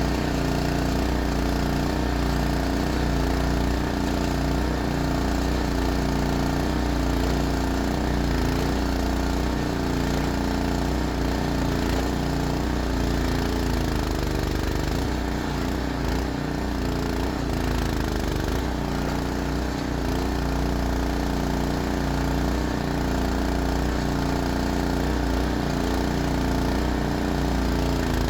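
Small single-cylinder engine of a homemade well-drilling rig, a Predator 212, running steadily at constant speed and powering the rig's hydraulics.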